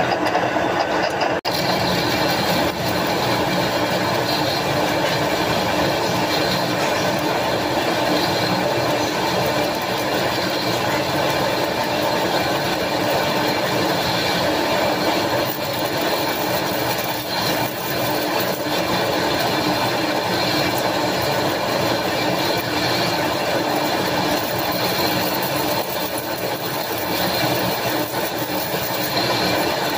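Large metal lathe running steadily, its four-jaw chuck spinning a heavy flange workpiece while the tool cuts in the bore. The sound is a loud, even mechanical run with several steady tones over a rough noise.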